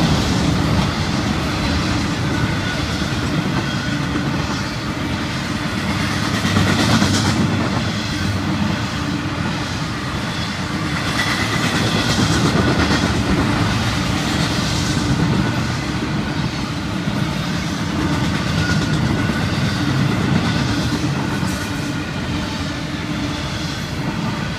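Florida East Coast Railway intermodal freight cars, double-stacked containers and trailers on well cars, rolling past at speed. A steady rumble and clatter of steel wheels on the rails, swelling and easing slightly as the cars go by.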